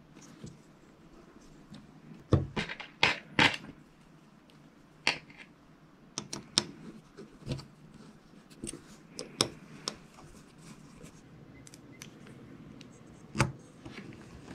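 Small metal and plastic airsoft rifle parts clicking and knocking as a VSR-10 hop-up chamber is fitted together by hand, with a quick cluster of sharp clicks about two to three and a half seconds in and scattered lighter taps after.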